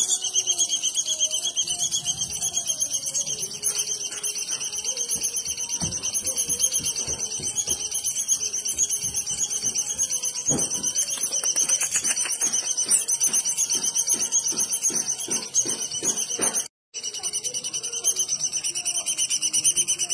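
Bird song recording of an unnamed unusual songbird: a continuous, high, fast-fluttering trill that goes on without pause, broken only by a brief dropout about 17 seconds in.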